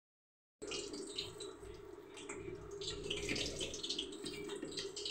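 A hand mixing chopped taro (arbi) leaves with flour and spices in a steel bowl: wet squishing and rustling that begins about half a second in, over a steady low hum.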